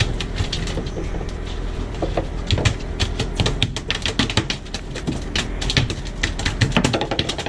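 A flounder flapping in a landing net on a boat deck, a rapid, irregular run of sharp slaps and rattles that starts a couple of seconds in, over the steady low hum of the boat.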